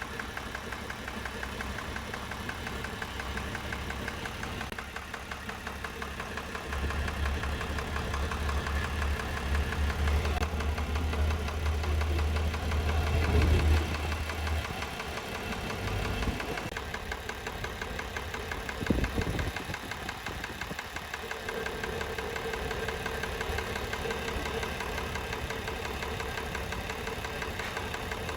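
Isuzu 6HH1 six-cylinder diesel engine idling with a knock, which the mechanic traces to cylinders 1 and 2, worst in number 1. For several seconds near the middle the running gets louder and deeper, and a couple of brief thumps follow.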